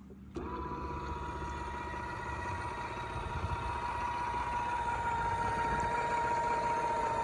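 Electric motor of a ski boat's engine-hatch lift running as the lid rises, a steady whine that starts abruptly just after the beginning and grows slowly louder.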